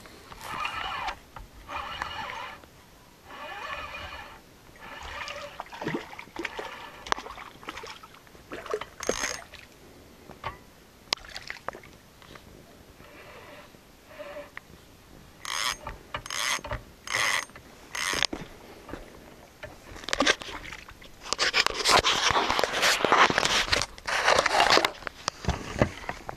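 Small Mitchell Mag Pro 1000 spinning reel cranked in short bursts, its gears whirring, with scraping and clicking of the rod and reel between turns. A longer, louder stretch of noise comes near the end as a hooked perch is brought up to the surface.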